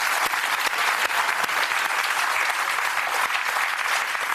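Studio audience applauding steadily, a dense mass of many hands clapping.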